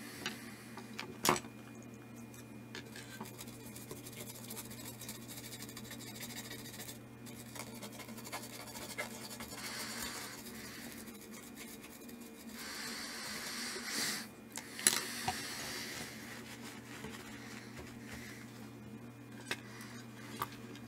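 Hands handling and turning over a circuit board on a textured mat: rubbing and scraping, with a few sharp clicks, the loudest about a second in and another just before fifteen seconds. A steady low hum runs underneath.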